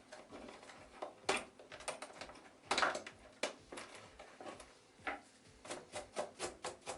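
Wires being pulled free of the plastic clamps inside a vacuum cleaner's housing: a string of irregular clicks and rustles of plastic and wire, coming quicker near the end.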